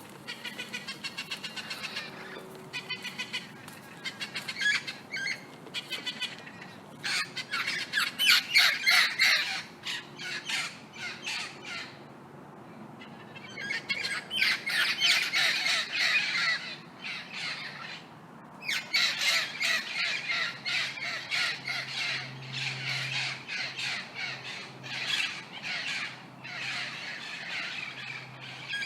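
Several parrots squawking in fast runs of harsh calls, with two short lulls partway through.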